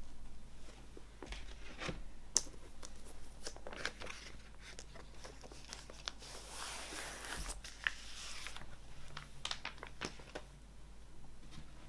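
Clear plastic record sleeve crinkling and rustling as a picture-disc vinyl record is handled and slid out of it, with a few sharp clicks. The longest rustle comes about six to eight seconds in.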